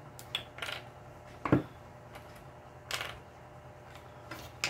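A few light clicks and taps of a metal drawing compass being handled and set down on paper on a tabletop, with a short scrape about three seconds in. The loudest tap comes about one and a half seconds in.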